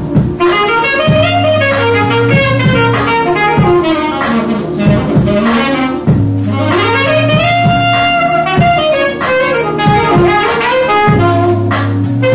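Saxophone playing a jazzy melody over a steady beat with a repeating bass line.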